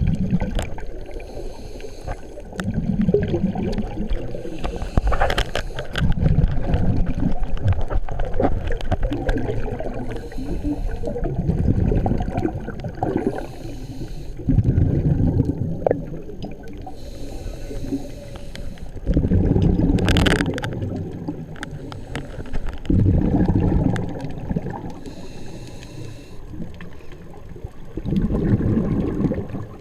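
Scuba diver breathing through a regulator underwater: a short hiss of inhalation, then a low, bubbling rumble of exhaled bubbles, repeating about every four to five seconds.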